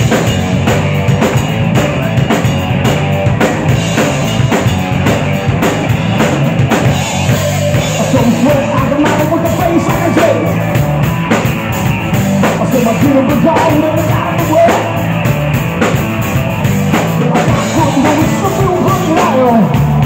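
Live rock band playing loud: electric guitar, electric bass and a drum kit.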